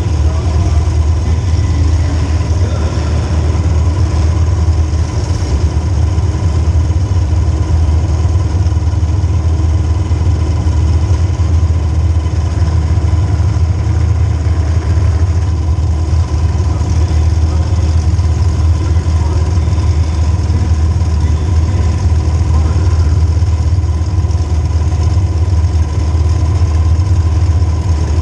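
Demolition derby car's small-block Chevy V8 idling with a steady, loud low rumble.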